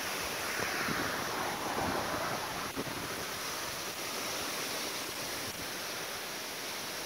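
Storm wind gusting through tall leafy trees, a steady rushing that swells over the first couple of seconds and then eases off.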